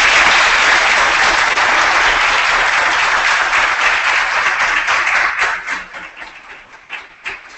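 Audience applauding: dense, steady clapping that thins into scattered single claps about five or six seconds in and dies away.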